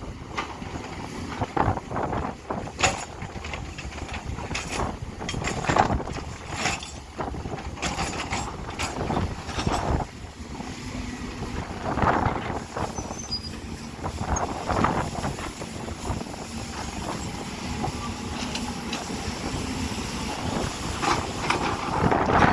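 Hydraulic excavator working mud, with irregular metallic clanks and knocks, some squeals, and a faint steady engine hum in the middle stretch.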